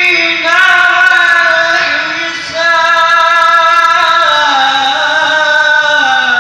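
A young man's voice chanting a melodic Islamic recitation into a microphone: long held high notes with ornamented glides. The voice falls back briefly about two seconds in, then resumes, and the last phrase steps slowly downward near the end.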